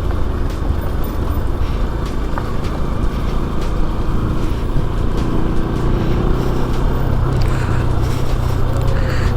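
Motorcycle engine running on the move, under a dense low noise of riding; a steadier engine hum comes through in the second half.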